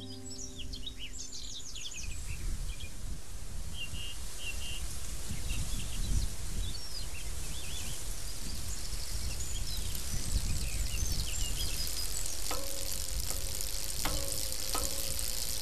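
Rural outdoor ambience: small birds chirping over a steady low rumble, with a few sharp clicks in the last few seconds. The last notes of an acoustic guitar fade out in the first couple of seconds.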